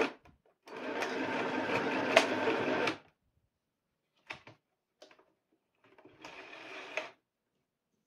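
Compact electric sewing machine (FHSM-505B) stitching fabric: a steady run of about two seconds that stops suddenly. Two short clicks follow, then a brief, quieter stretch of sound near the end.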